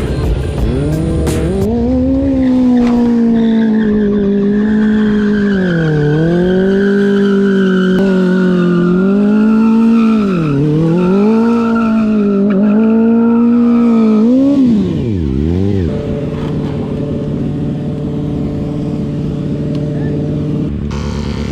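Small single-cylinder motorcycle engine, a Honda Grom's, held at high revs with several brief dips in pitch, then dropping at about 15 s to a lower steady running speed.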